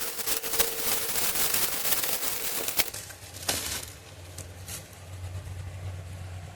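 Crackling and clicking of the new RAM stick's plastic retail packaging being handled. It stops abruptly about three seconds in, leaving a steady low hum.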